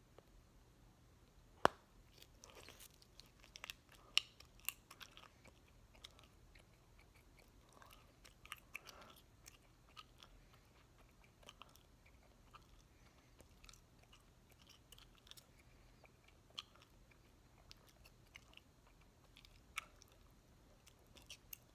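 A mouthful of three pieces of bubblegum being chewed open-mouthed: faint wet smacks and clicks that come in irregular clusters. About two seconds in, one sharp snap, the loudest sound, as the blown bubble pops.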